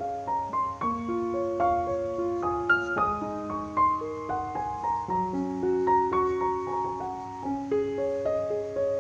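Background piano music: a slow melody of single held notes over soft chords.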